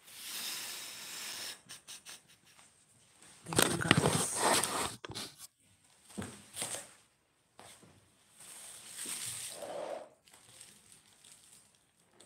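Rustling and handling noises close to the microphone in several irregular bursts. The loudest is about four seconds in.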